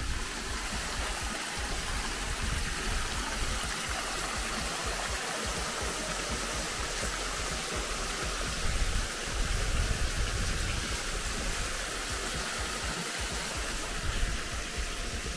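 Water rushing steadily through and over a small concrete pond dam and its culvert pipes, a constant hiss of falling water, with an uneven low rumble underneath that swells about two-thirds of the way in.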